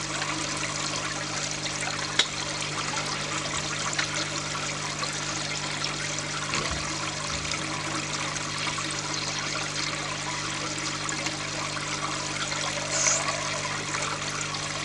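Water splashing and trickling steadily into an aquaponics fish tank, over a steady low hum. There is a single sharp click about two seconds in.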